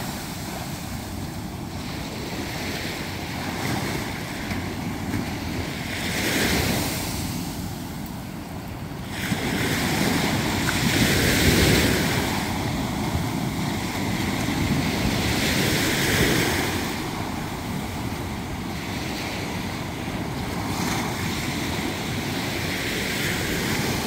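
Sea surf breaking and washing up a sandy beach, the sound swelling and easing with each wave every four or five seconds.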